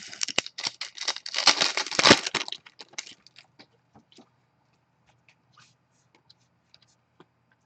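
Foil trading-card pack wrapper being torn open and crinkled for about two and a half seconds, followed by a few faint ticks as the cards are handled.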